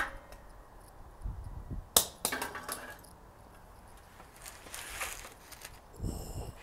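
Sheet-steel wheel tub and locking C-clamps being handled: a single sharp metal knock about two seconds in, then faint scraping and handling noises and a low thump near the end.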